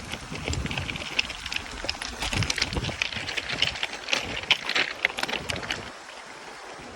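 Rokon two-wheel-drive trail motorcycle ridden through shallow creek water: continuous splashing and crackling of water and stones under the wheels. It eases off near the end.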